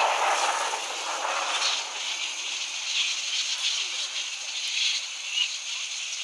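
Massed chatter of a huge flying fox colony, mostly little red flying foxes, during the evening flyout: a dense, steady wash of countless high squabbling calls. A broader rushing sound under it fades over the first two seconds.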